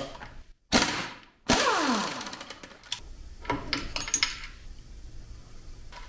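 Air impact wrench firing in two short bursts about a second apart to undo the engine's rotor; the second burst winds down with a falling whine. A few light metallic clicks follow.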